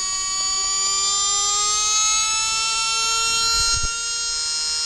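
Tamiya Super Stock brushed electric motor whining at high speed, no-load on a motor dyno. Its pitch rises over the first three and a half seconds as the supply is raised from 6 to 7.2 volts and the motor speeds up to about 27,700 rpm, then holds steady. There is a brief low thump just before four seconds in.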